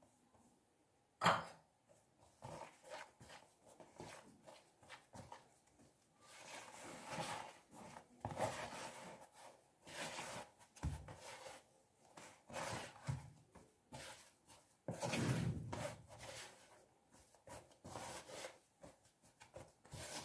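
A hand kneading flour into wet yeast dough in a plastic basin, making irregular soft rubbing and scraping sounds as the dough comes together. A single sharp knock about a second in.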